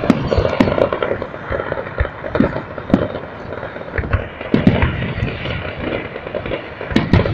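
Fireworks display: a dense run of bangs and crackling, with heavier booms about three seconds, four and a half seconds and seven seconds in.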